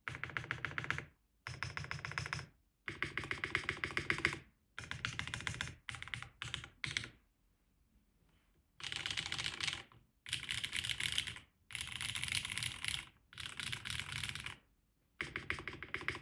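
Krush65 custom mechanical keyboard with Keygeek Y1X switches, an aluminium plate in an O-ring mount and GMK Fuji keycaps, clacking in rapid bursts of keystrokes with short pauses between. About five and a half seconds in it moves from the modifier keys to fast spam-typing across the board.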